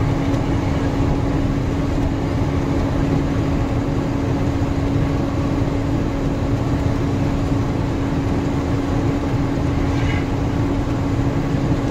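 Truck driving on the road: steady engine drone and road noise with a constant low hum, unchanging throughout.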